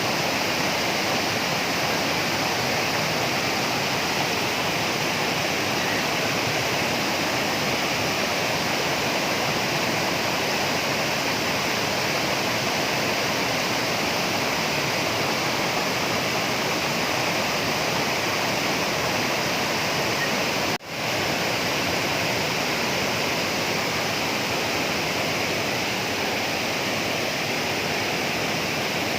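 Waterfall pouring: a steady, full rush of falling water. It breaks off for an instant about two-thirds of the way through and then carries on.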